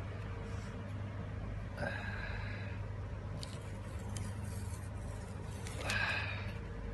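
Faint handling noise from a phone and a paper tag: a few light clicks and two short rustles, about two seconds in and near the end, over a steady low hum.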